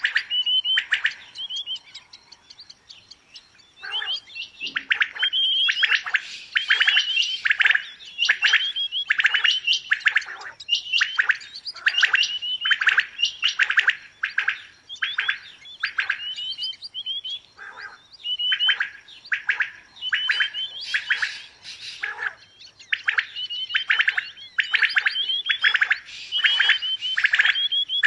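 Quail calling over and over in rapid clusters of sharp, clipped notes, with a short quiet gap about two to four seconds in.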